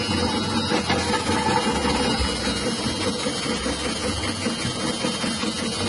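Electric cassava chip slicing machine with a 180-watt motor running steadily, its rotating blade cutting cassava fed down the stainless feed tubes.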